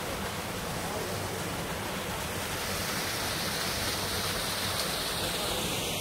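Canyon stream running over stones: a steady rush of water, its hiss growing brighter about halfway through.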